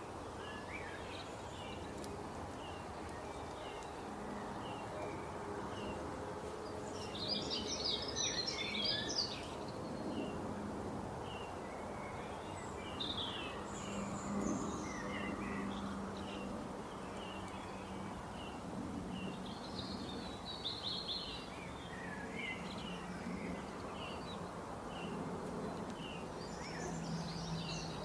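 Several small birds chirping and twittering, with a few denser bursts of rapid chirps, over a steady low background noise.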